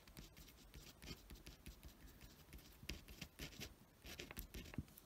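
Pen writing on paper: faint, irregular scratching strokes as a word is printed in capital letters.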